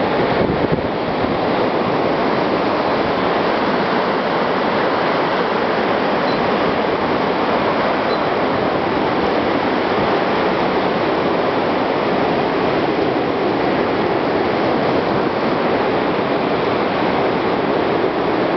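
Strong storm wind blowing steadily through evergreen and bare trees, a continuous rushing that holds the same loudness throughout.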